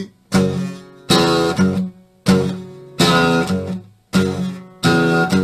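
Acoustic guitar strumming chords, about one strum a second, each chord ringing out and fading before the next.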